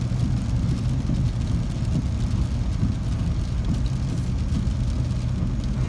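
Steady low rumble of a car's engine and road noise heard inside the cabin.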